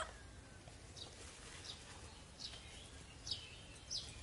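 Faint, short high chirps, each dropping in pitch, about five times over a quiet background.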